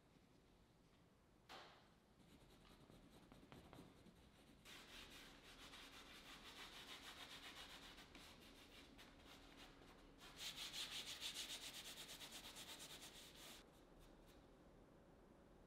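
Paintbrush scrubbing oil paint onto canvas in rapid short strokes, in two spells with the second louder, after a soft knock about a second and a half in.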